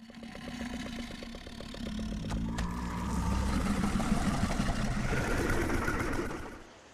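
Film demon-creature sound effect: a rapid, even fluttering pulse that swells after about two and a half seconds into a louder, rougher growl-like rumble, with two sharp clicks in between, then fades away near the end.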